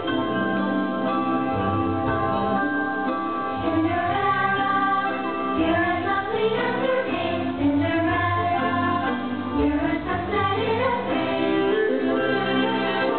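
Fireworks show soundtrack: sustained music with singing voices, steady in level and without distinct firework bangs.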